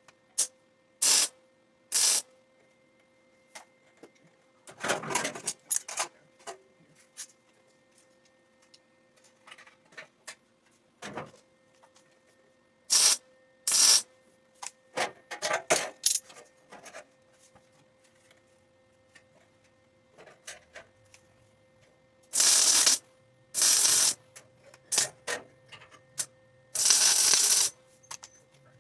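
Electric welder laying a series of short welds: separate bursts from a fraction of a second to about a second long with pauses between, the longest near the end, over a faint steady hum.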